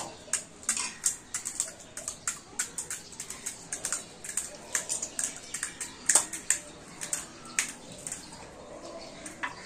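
Crisp panipuri shells crunching and cracking in quick, irregular bites from several eaters, with wet slurping and the odd clink of dishes.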